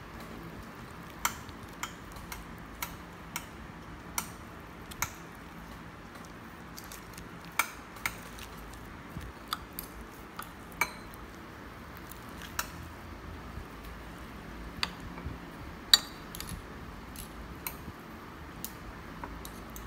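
Metal spoon clinking and scraping against a plate while mixing a bowl-style rice dish, in irregular sharp taps, one much louder clink about three-quarters of the way through.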